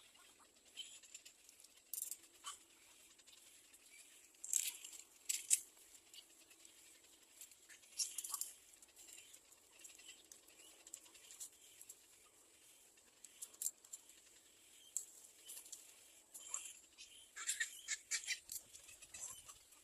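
Faint, scattered short rustles and scratches, with a few brief high-pitched sounds, from birds moving about at a nest.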